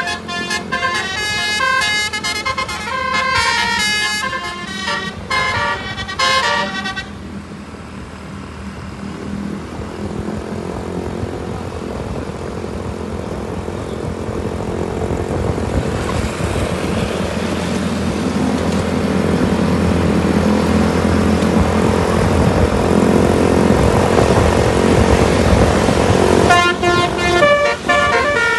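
Bus 'telolet' musical air horn playing a fast run of stepping notes for about seven seconds. Then an engine and road noise swell steadily louder for about twenty seconds, and the telolet horn starts up again near the end.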